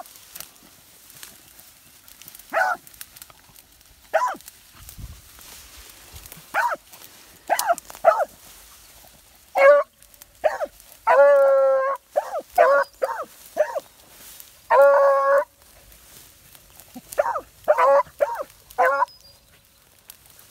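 Hounds giving mouth while working a scent track: scattered short chop barks, with a few longer drawn-out bawls among them, at irregular intervals.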